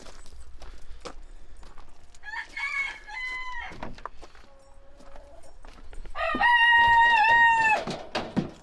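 Rooster crowing twice: a shorter crow about two seconds in, then a louder, longer crow held for about a second and a half.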